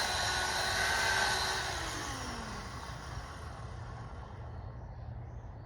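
Chainsaw cutting at high revs, then the throttle is let off about a second and a half in and the engine's pitch falls as it drops back toward idle.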